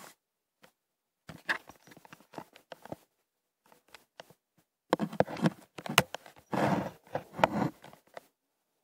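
A run of close taps, knocks and rustles: a few scattered ones in the first half, then a denser, louder cluster in the second half that stops shortly before the end.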